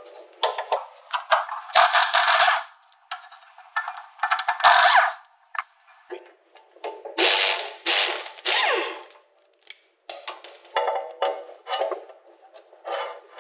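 Pneumatic impact wrench firing in a series of short hammering bursts with brief pauses. It is loosening the nuts and bolts that hold the front ball joint to the strut assembly of a Volvo 240.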